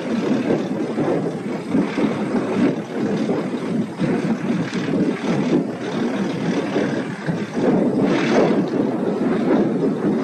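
Harvest machinery running steadily: a dense, even rumble with no clear pitch.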